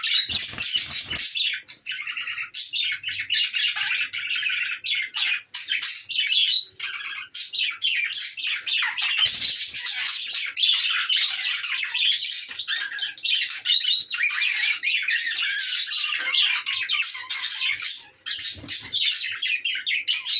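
Budgerigars chattering and warbling without a break, a dense stream of quick high chirps and squawks. The owner calls it their mating sound.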